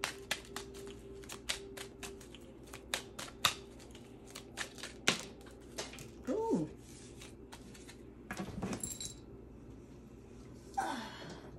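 A deck of tarot or oracle cards being shuffled and handled by hand: a quick, irregular run of clicks and snaps for the first five seconds or so, then a few softer handling and sliding sounds as a deck is set down.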